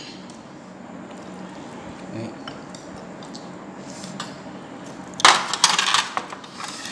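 Ceramic bowls and eating utensils clinking and clattering in a quick run lasting about a second, some five seconds in, after a stretch of quiet room sound.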